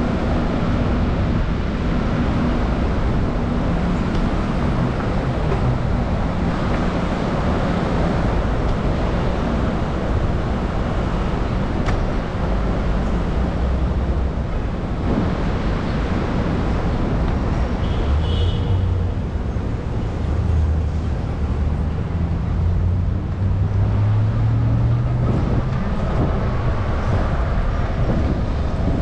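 Steady road traffic noise with a passing motor vehicle's engine, its low note rising slightly in pitch in the second half.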